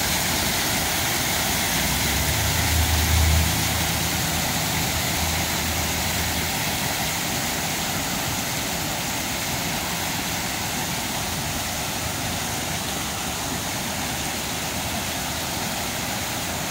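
Water falling in sheets down a stone cascade-fountain wall, a steady splashing hiss. A low rumble swells about two seconds in, peaks around three seconds and fades out by six or seven seconds.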